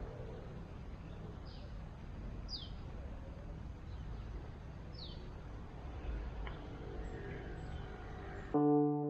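Wild birds calling in forest: short whistled notes that slide downward, a few seconds apart, over a steady outdoor background noise. Near the end, electric-piano music starts suddenly.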